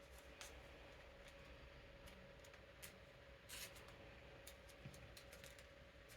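Faint rustling and soft clicks of playing cards being slid into plastic card sleeves, a few scattered handling noises with the clearest about three and a half seconds in, over the steady hum of an electric fan.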